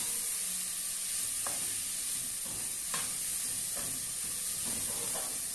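Chopped onion, pepper and garlic sizzling in oil in an aluminium pot, with a steady high hiss, stirred with a large metal spoon that gives a few light clicks against the pot.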